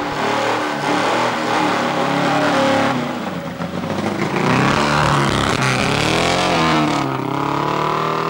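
Racing saloon car's engine revving hard as it launches from the start line and accelerates up the road, its pitch climbing, dropping at a gear change about three seconds in, then climbing again and falling away near the end.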